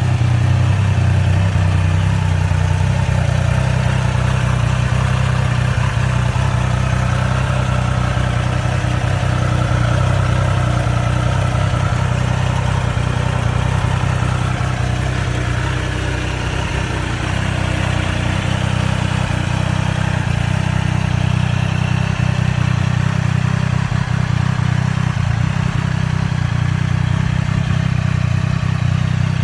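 Triumph Street Triple 765 RS's three-cylinder engine running steadily at an even pitch, with a slight dip in level about halfway through.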